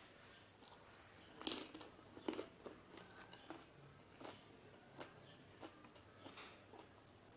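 A person chewing and crunching food close to the microphone: two louder crunches about a second and a half in, then softer crunches and clicks every half second or so.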